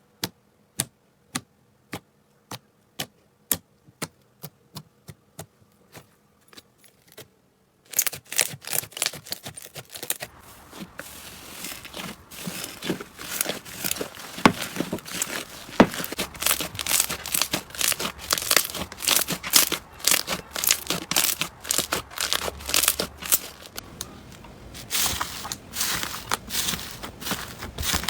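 Slime being worked by hand, making crisp clicks and crackles: single sharp clicks a couple of times a second at first, then from about eight seconds in a dense, continuous crackling and crinkling that grows louder near the end.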